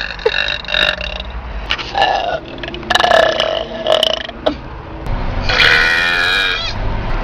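A woman burping loudly several times in a row, the last burp long and drawn out, lasting about two seconds.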